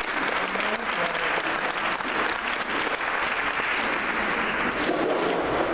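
Audience applauding steadily, with a few faint voices mixed in.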